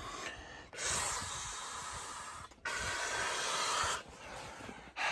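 A man blowing air by mouth into the valve of an inflatable paddling pool: long hissing exhalations of one to two seconds each, with short breaths in between.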